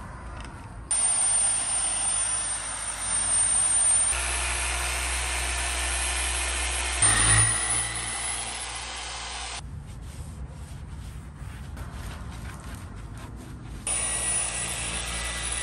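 Bauer dual-action polisher running with a foam pad on van paint: a steady high whine over a whirring hiss. It starts about a second in and steps up in pitch and loudness twice, at about four and seven seconds. It drops out for about four seconds near the end, then comes back.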